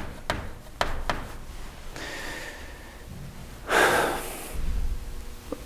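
Chalk writing on a blackboard, with a few sharp clicks in the first second. Just under four seconds in comes a loud breath from the lecturer, lasting under a second.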